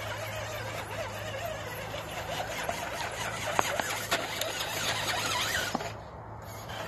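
Radio-controlled scale crawler's electric motor and drivetrain running over a log pile, with a steady low hum and a few sharp knocks as the tires and chassis hit the wood.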